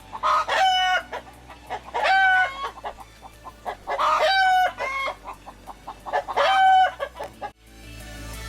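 Agitated rooster calling loudly four times, about two seconds apart, upset by the commotion of a tree falling next door. The sound cuts off sharply near the end.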